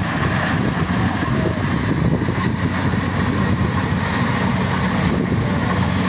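Rice combine harvester's diesel engine running steadily at close range as the machine cuts through standing rice.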